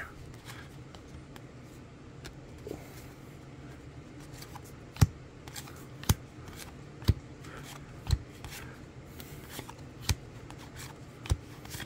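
Trading cards being flipped through by hand and dealt one by one onto a pile: a soft rustle of card stock, with a sharp card snap about once a second from about five seconds in, six in all.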